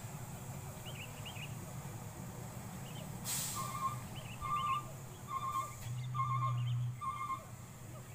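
Low, steady rumble of a loaded diesel logging truck's engine as it moves slowly away, swelling slightly about six seconds in. A brief rush of noise comes about three seconds in. From about four seconds a short, high chirping call repeats roughly every three-quarters of a second.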